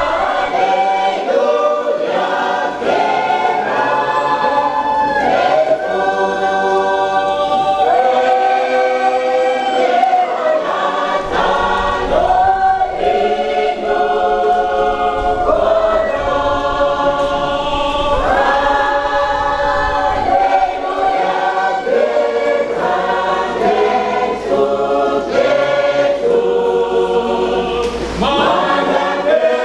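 Church choir singing in several-part harmony, holding long chords that change every second or two.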